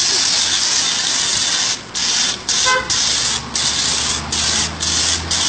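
Car-wash pressure-washer jet spraying water onto a person and the pavement: a steady hiss that drops out briefly several times from about two seconds in, with a low steady hum underneath in the second half.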